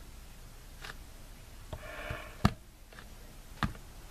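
Three sharp clicks in a quiet small room: a faint one about a second in, then two louder ones a little over a second apart near the end, with a soft breathy rustle just before them.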